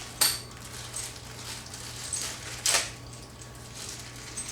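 Small packets of screws and grill hardware being handled: light rustling and scratching with two sharp clicks, one just after the start and one about two and a half seconds later, over a steady low hum.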